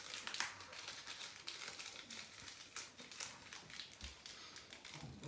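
Small plastic ramen seasoning sachet being opened and squeezed out over a bowl of noodles: a run of soft crinkles and crackles.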